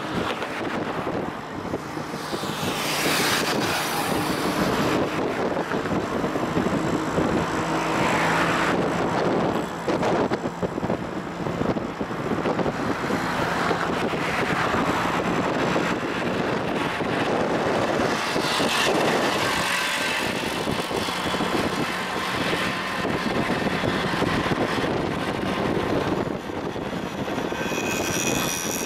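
Road traffic heard from a moving vehicle: a steady engine hum mixed with wind and tyre noise, while cars, motorcycles and auto-rickshaws pass close by in several rising and falling swishes.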